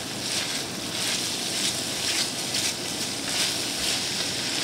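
Diced vegetables sizzling in olive oil in a stainless steel sauté pan, stirred with a silicone spatula in repeated strokes about twice a second.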